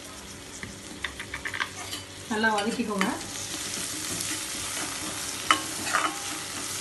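Chopped shallots, dried red chillies and curry leaves frying in oil in an iron kadai, sizzling as they are sautéed and stirred with a ladle that scrapes and clicks against the pan a few times.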